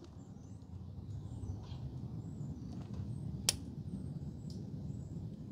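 Quiet hand-tool work as a motorcycle shock bolt is slowly tightened with a torque wrench: a low steady background rumble with one sharp click about three and a half seconds in.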